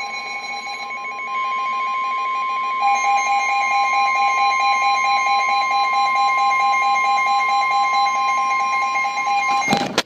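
Midland weather radio sounding a NOAA Weather Radio alert: a steady warning tone over a fast-pulsing lower beep, getting louder in two steps early on. The tones cut off with a short burst just before the end. The alert signals that a severe thunderstorm warning has been issued.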